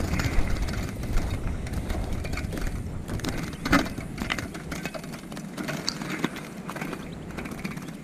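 Wire-mesh bird trap cage rattling and clicking as it is handled and turned over in the hands, many small metal clicks. A low rumble underneath drops away about halfway through.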